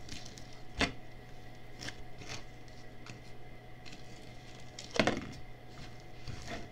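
Small clicks and taps of a plastic spoon and thin plastic candy-kit trays being handled on a tabletop, with a sharper click a little under a second in and a louder knock about five seconds in.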